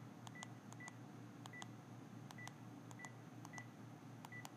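Panasonic KX-TGM450S cordless handset keypad being dialed: a faint click and short high beep with each key press, about seven presses at an uneven pace of roughly one every half second.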